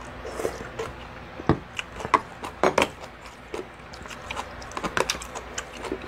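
Chopsticks clicking and tapping against a plastic kimchi tub and the soup pot while radish kimchi is picked out and eaten. The clicks come at irregular intervals, and the loudest come between about one and a half and three seconds in.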